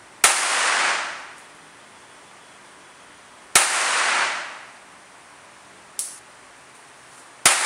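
Walther PPK .22 LR pistol firing three single shots, about three to four seconds apart. Each is a sharp crack followed by about a second of reverberation. A fainter, shorter pop comes between the second and third shots.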